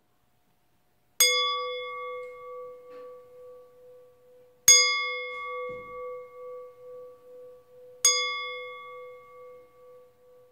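Singing bowl struck three times with a wooden striker, about three and a half seconds apart. Each strike rings on in one steady tone that wavers as it slowly fades.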